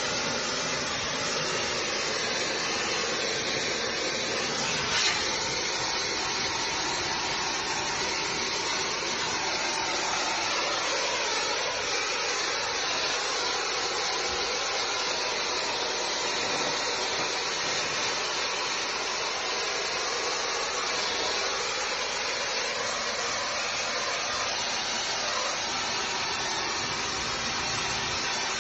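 Brick-cleaning jet hissing steadily, with one brief knock about five seconds in.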